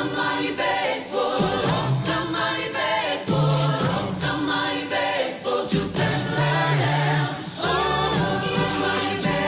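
Choir singing with musical accompaniment.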